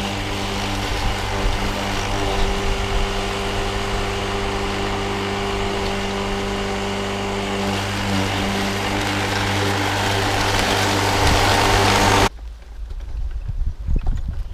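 Laplosh rotary lawn mower, converted to a 2.2 kW, 3000 rpm electric motor, running steadily with a buzz as its blade cuts grass. About twelve seconds in the sound cuts off suddenly, leaving only a faint low rumble.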